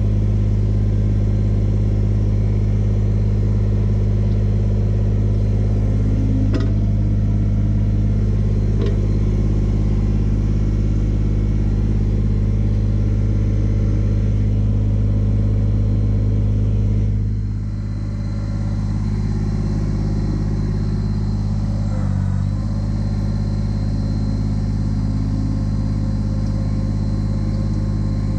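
Kubota BX25D tractor's three-cylinder diesel engine running steadily. About two-thirds of the way through the engine note drops a little and it runs slightly quieter, with a brief dip a few seconds later.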